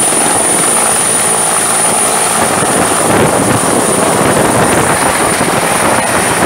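Bell 212 helicopter running loud at close range, its twin turbine engines and two-blade main rotor going steadily, with a steady high turbine whine over the rotor noise.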